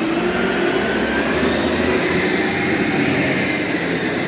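Steady city street traffic noise, with an engine hum whose pitch slowly rises.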